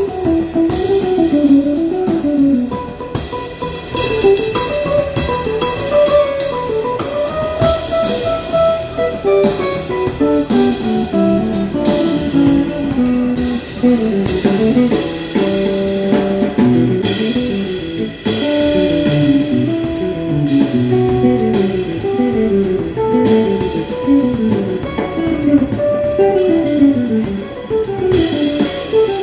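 Live guitar trio playing: an electric guitar solos in fast runs of single notes, many falling phrases, over bass and drum kit in a blues-jazz style.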